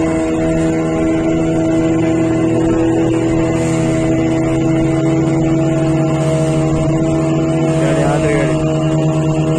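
Boat engine running steadily at a constant pitch, a continuous motor hum while under way on the water.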